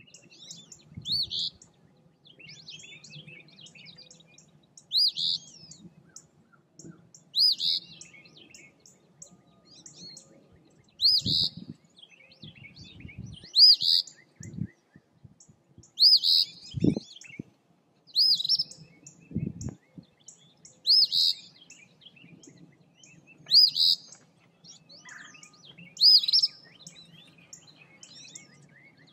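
Eastern phoebe singing its harsh two-part "fee-bee" song over and over, about every two to three seconds. Fainter bird sounds come between the songs, and a few low thumps fall near the middle.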